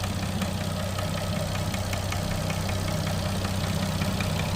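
Nissan RB25DET NEO turbo straight-six idling warm with a pretty loud, rapid, even ticking over the engine note. The owner takes it for a lifter tick around cylinder 4 or 5. The engine also has a slightly leaking exhaust manifold gasket.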